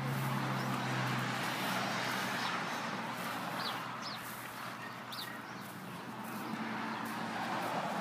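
Outdoor background: a steady hiss and rumble of traffic on a nearby road, with a low engine hum that fades after the first couple of seconds and returns briefly near the end. A few short, high bird chirps come about four and five seconds in.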